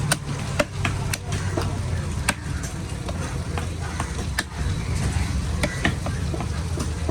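Irregular sharp knocks of a knife chopping through a large fish on a cutting block, about one or two a second, over a steady low rumble.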